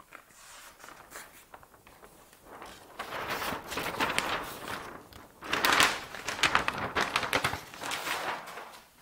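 Large flip-chart paper sheets being lifted and turned over on an easel, rustling in several bouts, loudest about six seconds in.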